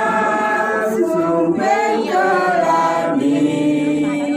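Voices singing a slow Balinese song together, the melody moving in long held notes.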